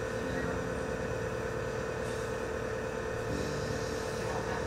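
A steady, unchanging hum with one constant mid-pitched tone.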